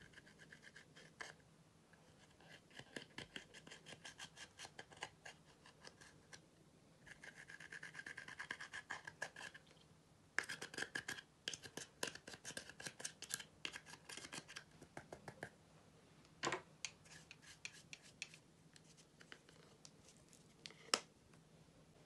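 A metal-tipped tool scraping pressed eyeshadow powder out of a palette pan in rapid scratchy strokes, in several bursts, followed by a few single taps near the end.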